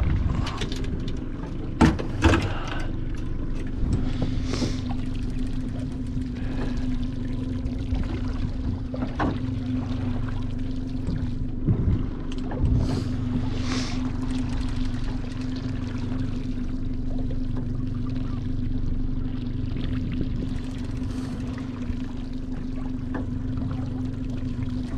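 Small boat's engine idling with a steady hum, with water sloshing and trickling against the hull. A few sharp knocks stand out, two about two seconds in and two more about halfway through.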